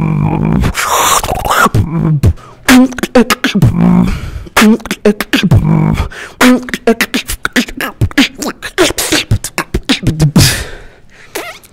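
Solo beatboxing into a microphone: a sustained droning bass hum breaks off under a second in, giving way to a fast run of vocal kick drums, snares and clicks laced with short pitched bass notes. Near the end a hissing sound.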